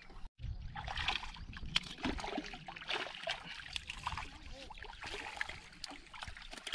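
A hooked baam (spiny eel) thrashing at the water's surface, splashing repeatedly as it is drawn to the rock and netted.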